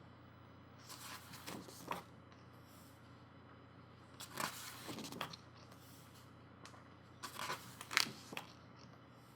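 Pages of a photobook being turned by hand: paper rustling and sliding in three short bursts, about three seconds apart.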